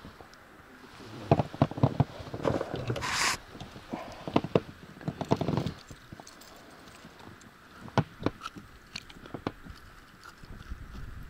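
Handling noise around a freshly landed pike: irregular clusters of clicks, knocks and scraping, with one short hissy burst about three seconds in, as the fish is held and unhooked in the boat.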